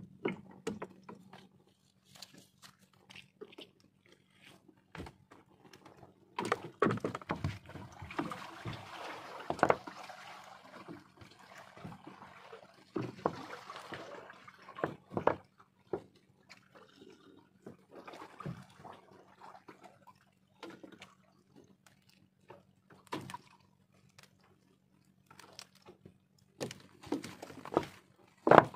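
A gillnet being hauled and handled aboard a small wooden fishing boat: wet netting rustles while water splashes and drips off it, with scattered knocks against the wooden hull. A faint steady low hum runs underneath.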